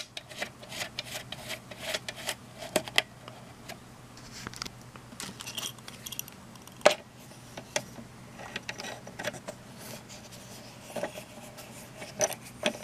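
Irregular small metallic clicks and clinks of screws and a hand tool being handled while the mounting screws are fitted into a multimeter's circuit board and plastic case, with one sharper click about seven seconds in.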